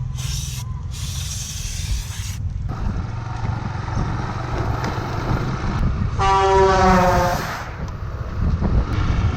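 Steady low vehicle rumble with hissing noise, and a loud horn blast lasting about a second and a half, about six seconds in, sliding slightly down in pitch.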